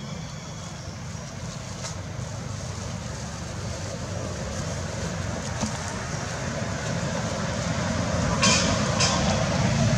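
Low rumble of a passing motor vehicle, growing steadily louder as it approaches. Two short hisses come near the end.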